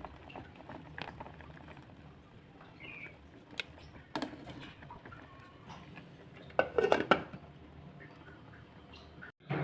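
Kitchen utensils and dishes clinking and knocking: scattered single knocks, then a louder cluster of clatter about seven seconds in.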